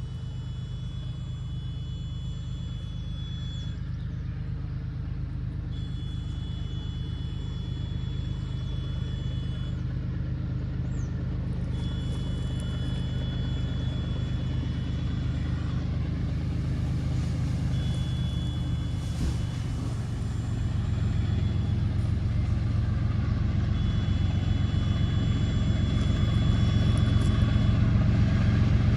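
GE ES43BBi diesel-electric locomotives working at full throttle, their V12 diesel engines making a deep, steady rumble that grows louder as the train approaches. A faint high steady tone comes and goes every few seconds.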